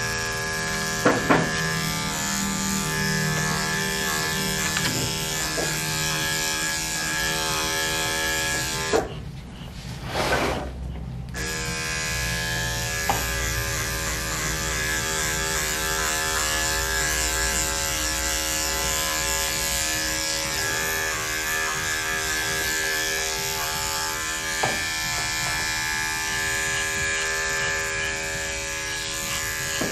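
Electric dog grooming clippers running with a steady hum while clipping matted fur. They cut out about nine seconds in and start again about two seconds later.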